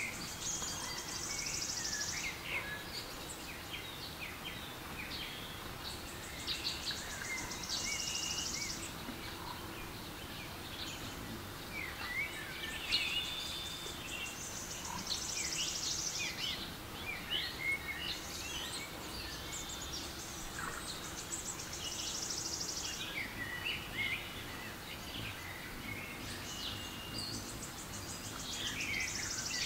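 Recorded forest ambience with birdsong: many short chirps and whistles over a steady hiss, and a high, rapid trill lasting about two seconds that comes back every six or seven seconds.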